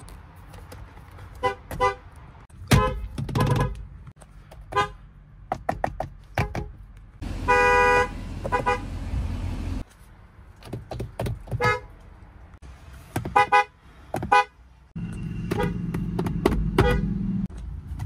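Car horns from many different vehicles, honked one after another in short taps and cut together, each with its own pitch. The longest and loudest honk comes about seven seconds in.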